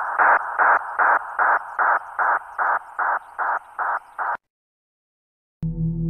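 A rhythmic pulsing sound effect from a horror soundtrack, about two and a half pulses a second, fading out and stopping about four seconds in. After a moment of silence a low, dark drone begins near the end.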